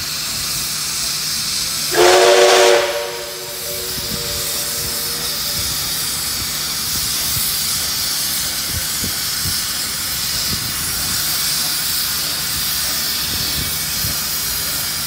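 Steam locomotive 5917, a 59 class 2-8-2, sounds one short whistle blast of several tones together about two seconds in as it sets off. A steady loud hiss of steam venting at the front of the engine runs on under it, with a few faint low thuds.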